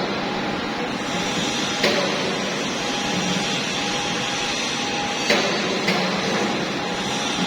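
Factory machine running with a steady mechanical din and hum, broken by a sharp clack about two seconds in and two more a little past the five-second mark.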